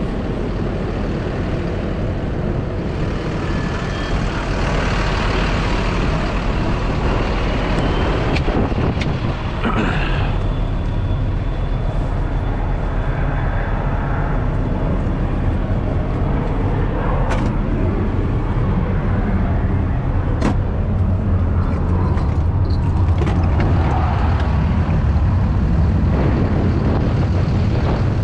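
Diesel engine of a de-icing truck running at idle, a steady low rumble, with a few sharp clicks over it.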